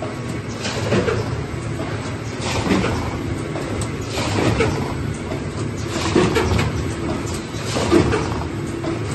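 Multihead weigher and tub-filling line running: a steady mechanical hum, with a rattling clatter roughly every two seconds as each weighed dose of snacks drops through the funnels into the plastic tubs.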